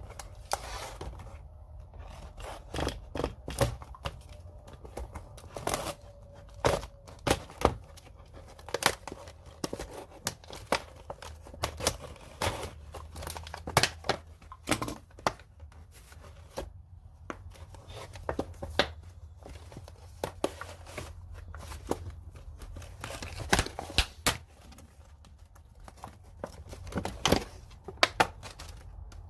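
Product packaging being opened and handled by hand: cardboard and plastic tearing and crinkling, with irregular sharp clicks and rustles throughout.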